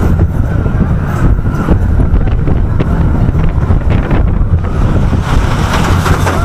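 Gemini roller coaster train running along its track: a steady low rumble of the wheels, with wind buffeting the microphone.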